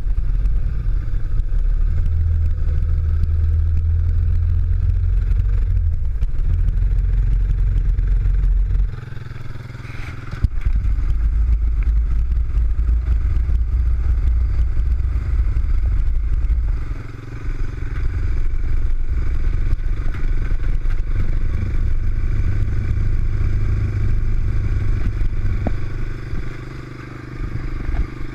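ATV engine running at low trail speed, its rumble easing off briefly three times and picking up again, with some rattle and scrape from the ride over rough ground.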